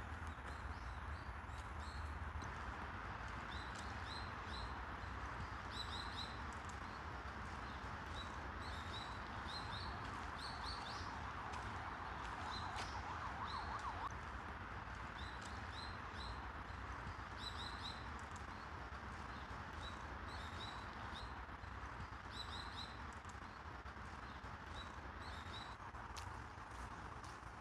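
Small birds chirping in short repeated clusters over a steady background hum.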